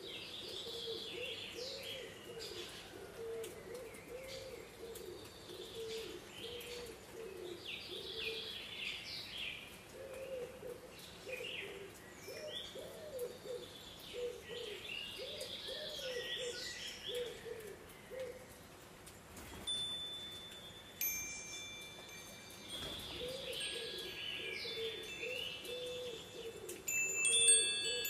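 Birds calling: a low cooing phrase repeated over and over beneath higher chirps and twitters. In the last several seconds, a few clear, sustained chime tones ring over them.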